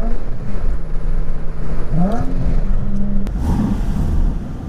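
Nissan 350Z's V6 engine heard from inside the cabin while the car accelerates. Its note climbs at the start, holds steady, and climbs again about two seconds in. The sound changes abruptly to a rougher engine noise a little after three seconds.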